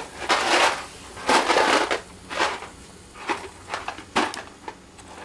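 Handling noise: irregular crunching and rustling bursts, about half a dozen, with short pauses between.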